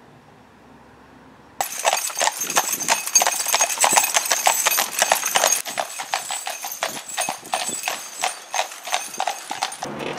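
A carriage horse's hooves clip-clopping on a tarmac road as it pulls a carriage, in a steady run of sharp clicks. The hoofbeats start suddenly about a second and a half in, after a faint outdoor hush.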